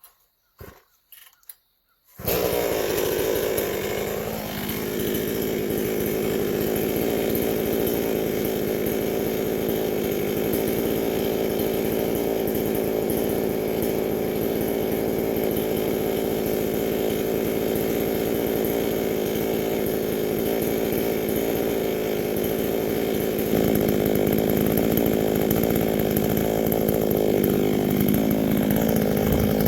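Gas chainsaw comes in abruptly about two seconds in, after a few faint knocks. It then runs at high speed while trimming protruding knots off a log. The engine note sags and recovers about four seconds in and again near the end.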